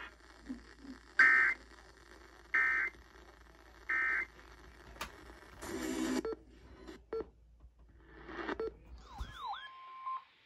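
Three short bursts of Emergency Alert System data tones, the warbling SAME digital code, about a second and a half apart. Near the end a whistling tone sweeps down and up and settles on a steady pitch.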